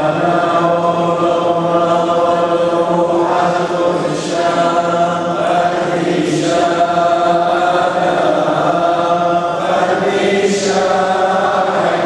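Chaldean liturgical chant sung together by a congregation of men in slow, long-held notes.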